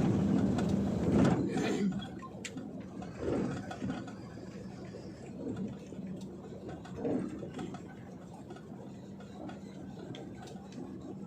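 Truck engine running with a steady low hum, louder for the first two seconds.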